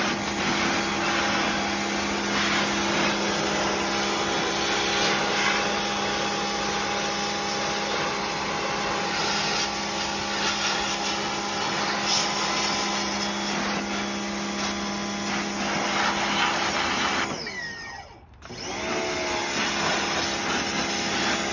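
Pressure washer running steadily with a motor hum, its water jet spraying onto a bare metal mini bike frame. Near the end it cuts out for about a second, the motor pitch falling, then starts again.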